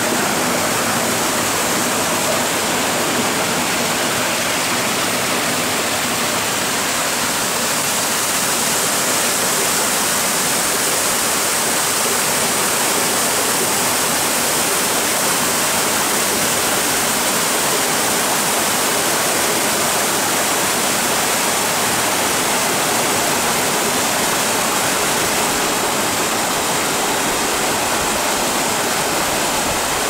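Steady rush of water from a rocky mountain stream cascading over boulders and a waterfall pouring into a pool.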